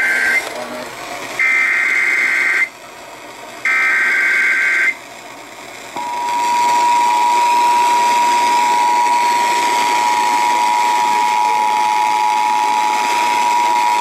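Emergency Alert System broadcast through an FM radio's speaker: the tail of one SAME header data burst and two more buzzing digital bursts about a second long each. About a second after the last burst, the EAS two-tone attention signal (853 and 960 Hz together) sounds steadily for about eight seconds, over a steady hiss. It heralds a Severe Thunderstorm Warning.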